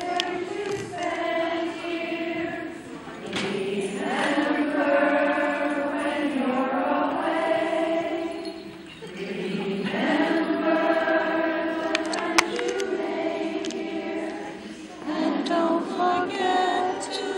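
A group of women singing a song together, in sung phrases broken by short pauses for breath about every six seconds.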